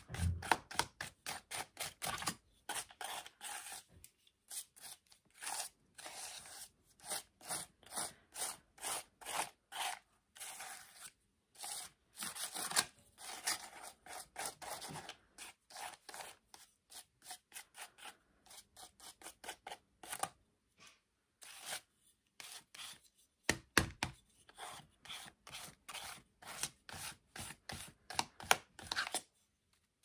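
A palette knife scraping white paint across magazine paper in rapid, repeated short strokes, with a few brief pauses.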